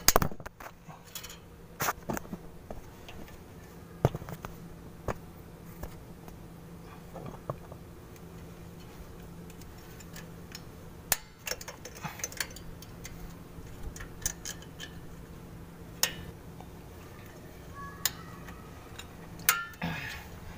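Scattered sharp metallic clicks and clinks of pliers and coil return springs being hooked onto drum parking brake shoes, a few seconds apart, over a steady low hum.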